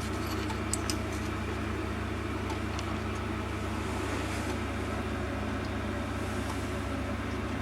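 Mini milling machine running steadily while its cutter is fed across a small clasp plate, milling a shallow 5-degree angled face. A few light ticks come about a second in.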